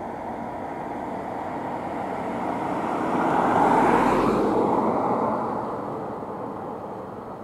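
A vehicle passing by: a rushing noise that swells to its loudest about four seconds in and then fades away.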